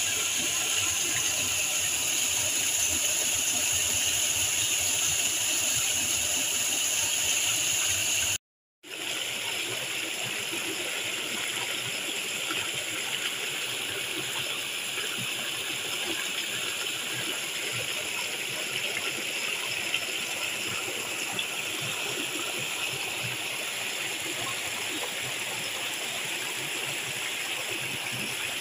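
Small waterfall and stream running over rocks into a pool: a steady rush of water. It cuts out briefly about a third of the way in and then resumes.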